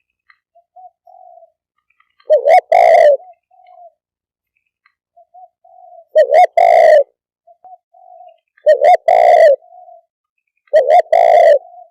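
Spotted dove cooing: four loud two-part coo phrases about every two and a half seconds, with soft short notes between them. This is the territorial call used to lure wild doves.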